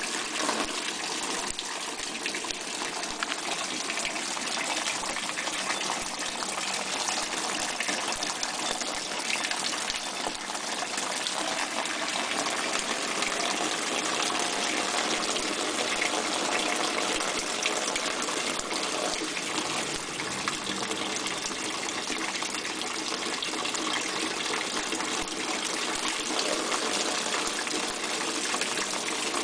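Pond water spraying out of the PVC pipe's fittings and splashing down through a plastic net pot into the tray below: a steady rushing, splattering water sound.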